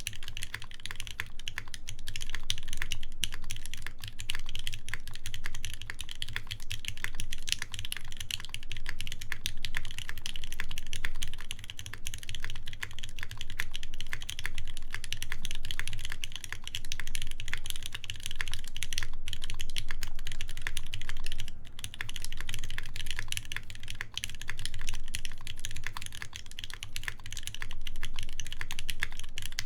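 Continuous fast typing on a Keycult 2/65 mechanical keyboard with a full brass plate, lubed ZealPC Tealios linear switches and GMK keycaps: a dense run of keystroke clacks with a deep bottom-out thock, with occasional brief pauses.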